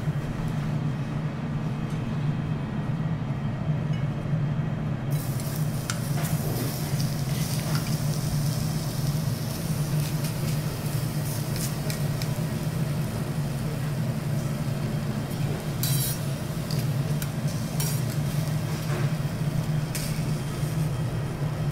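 Thin-sliced garlic starting to sizzle in oil on a hot teppanyaki steel griddle, a steady hiss that comes in about five seconds in. Now and then a metal carving fork and spatula click and scrape on the steel, over a steady low hum.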